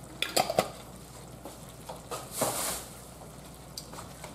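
Quiet handling of a glass Prego sauce jar as its rinse water is poured into the sauce pan: a few light clinks in the first second, then a short soft pour about two and a half seconds in.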